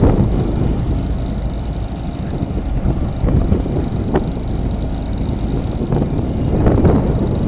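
Steady low rumble aboard a fishing boat at sea, with wind buffeting the microphone and a couple of brief louder surges.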